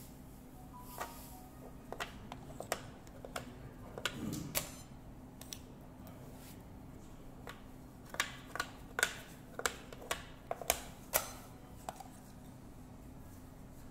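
Othello discs clicking on the board as moves are placed and discs flipped by hand, with game-clock button presses. A scattered few clicks come in the first five seconds, then a quick run of about eight sharper clicks about eight seconds in as a row of discs is turned over.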